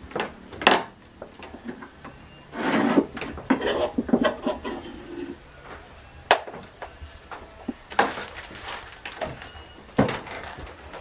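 Bowls, plates and a serving spoon clinking, knocking and scraping on a wooden sideboard as food is dished onto a plate: scattered sharp knocks, with a longer scraping rustle about three seconds in.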